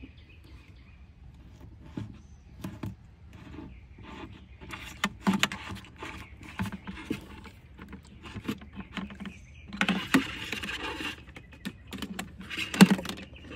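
Scattered clicks, taps and rubbing from a thermometer probe and its thin wire being fed through a drilled hole in a plastic cooler wall and pulled through inside, with a longer rustling scrape about ten seconds in.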